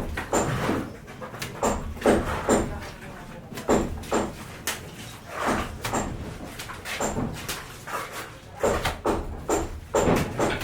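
A dog barking repeatedly, each bark short and falling in pitch.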